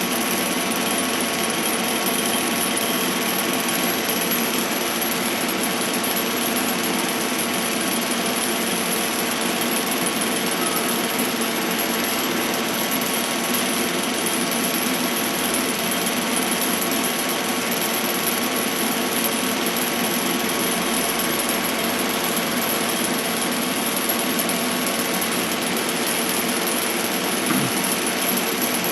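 Goodway GL25 CNC lathe running steadily under power: an even machine noise with several steady tones held throughout.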